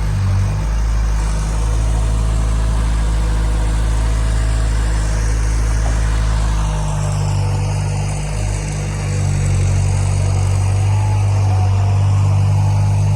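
An engine idling, a steady low hum that changes note about seven seconds in.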